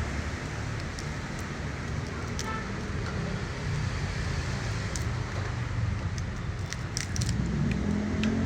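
Steady low rumbling background noise with a few light clicks and taps scattered through it.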